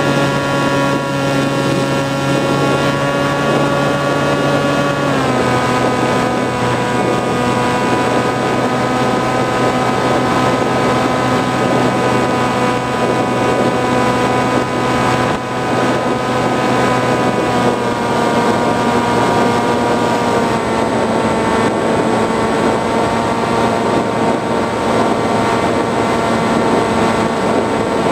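Motor and propeller of an FPV flying-wing model plane running steadily, heard from its onboard camera. The pitch steps down about five seconds in and twice more near two-thirds of the way through as the throttle is eased back.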